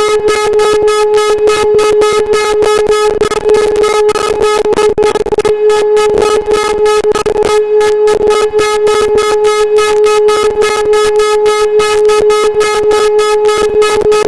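Old Hörmann F71 civil defense siren sounding a loud, steady tone of one unchanging pitch, with a fast, even flutter about four or five times a second.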